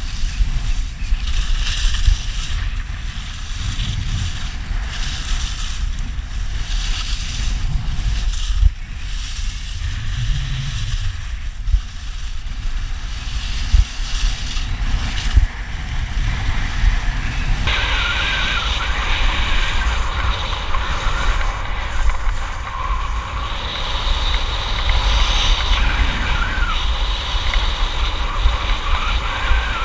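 Wind buffeting the action camera's microphone and skis hissing and scraping over packed snow during a fast downhill run. About two-thirds of the way through the sound changes abruptly to a brighter, louder hiss.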